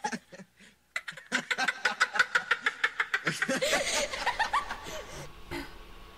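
A person laughing hard in a quick run of short ha-ha pulses, trailing off into a few drawn-out voiced sounds and fading out.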